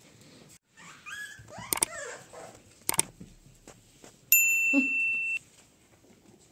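A puppy gives a short squealing yelp about a second in. Two sharp clicks and a bright electronic bell ding lasting about a second follow: sound effects of a subscribe, like and notification-bell button animation.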